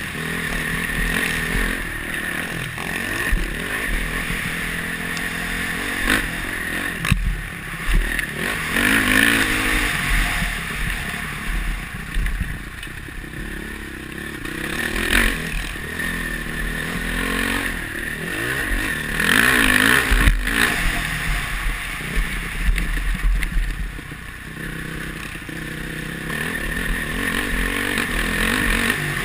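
Honda CRF450R's four-stroke single-cylinder engine revving up and down as the motocross bike is ridden hard over a dirt track, heard from a helmet camera. A few sharp knocks stand out from the engine.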